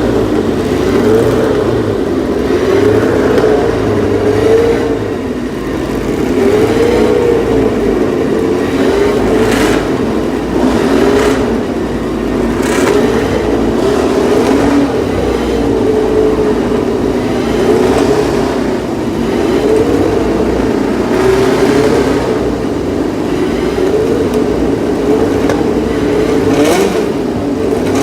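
Racing car engines running hard, the engine note rising and falling again and again, with a few brief rushing surges of sound.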